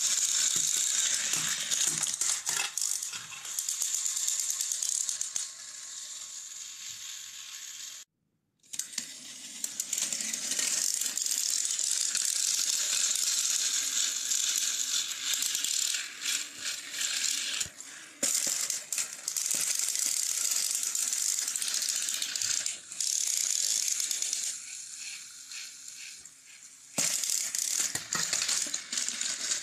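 Battery-powered Plarail toy train engines pushing against each other on plastic track: a steady, high whirring rattle of their small motors and gearboxes. The sound drops out completely for a moment about eight seconds in, and grows quieter for a few seconds near the end.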